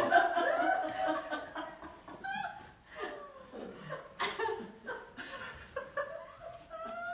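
People chuckling and laughing, with a couple of sharp knocks or claps partway through.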